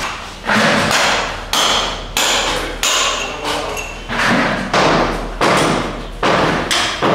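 A heavy metal tool striking over and over, about nine blows spaced a half second to a second apart, each with a short metallic ring.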